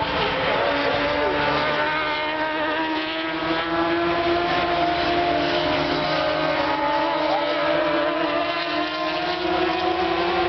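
Superstock race motorcycle engines running at high revs on the circuit, a steady, loud engine note that dips slightly in pitch and then climbs again as the bikes pass.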